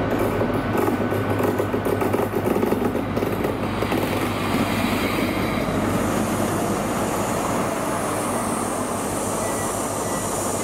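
Class 43 HST power car with its MTU diesel engine running as it rolls slowly past along the platform, a steady low engine hum over the rumble of the train, followed by the Mark 3 coaches rolling by.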